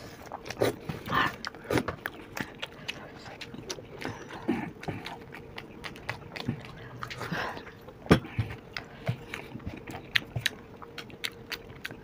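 Close-up eating of soft, yogurt-soaked dahi bhalla: metal spoons clicking and scraping on disposable plates, mixed with wet chewing, as irregular sharp ticks with one louder clack about eight seconds in.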